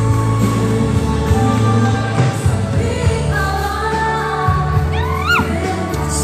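Live pop band music with a singer, played loud over a PA system in a large hall. A voice slides sharply up in pitch about five seconds in.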